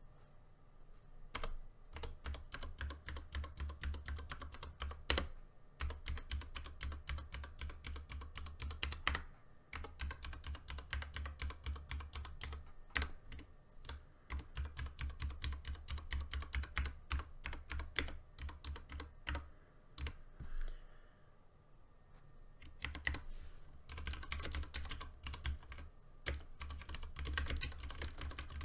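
Typing on a Ducky One 2 Mini keyboard with Cherry MX Brown switches, set on a mouse pad that muffles the keystrokes a little. A rapid run of key clicks with brief pauses, the longest about 20 seconds in.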